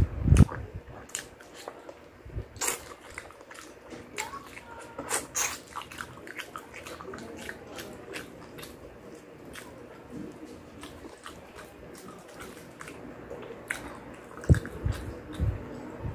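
A person eating fried chicken close to the microphone: biting and chewing, with many short crackly clicks and wet mouth sounds. There are heavier, fuller bites right at the start and again near the end.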